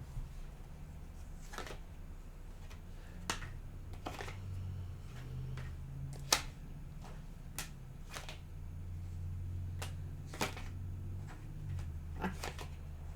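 Tarot cards being handled: irregular sharp snaps and slaps of the cards, about a dozen over the stretch, over a steady low hum.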